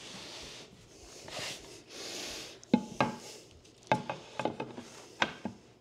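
Rustling and scraping as hardwood flooring planks are handled and slid over paper underlayment, then several sharp wooden clacks as a plank is knocked and fitted into place.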